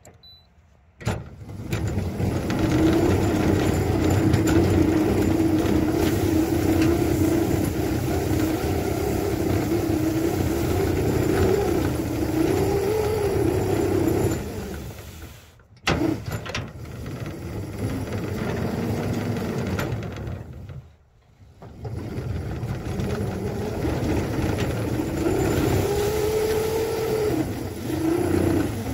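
A 7½-inch gauge ride-on locomotive's drive running under load as it pushes a plow through heavy, wet snow. It starts about a second in, its note wavering up and down a few times, and cuts out twice briefly, about halfway through and again a few seconds later.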